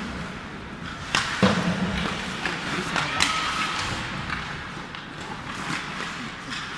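Ice hockey play: skate blades scraping on the ice, with a few sharp clacks of sticks striking the puck, mostly in the first half.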